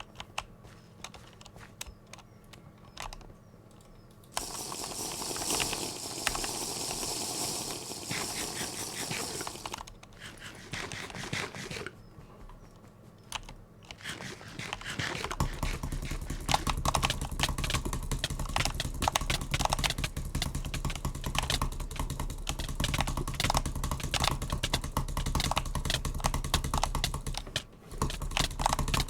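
Rapid, irregular clicking of a cheap butterfly-knife trainer (balisong clicker) being flipped: sparse clicks at first, then a dense run of clicks over a low hum through the second half. A few seconds of rushing noise come in between.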